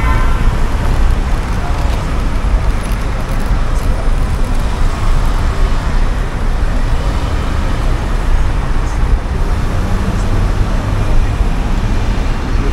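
City road traffic: cars driving through an intersection, a steady rumble of engines and tyres with no pauses.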